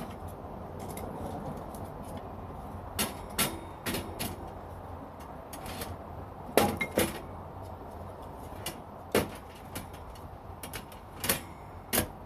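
A series of irregular clicks and knocks, about nine of them at uneven spacing, as of objects being handled and set down, over a steady low background noise.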